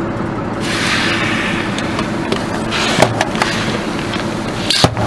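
A car creeps forward over full aluminium cans of Coca-Cola, its engine humming low while the tyre crushes the cans: they burst with a spray of fizzing soda. There is a hiss about a second in, a cluster of sharp cracks about three seconds in and one more crack near the end.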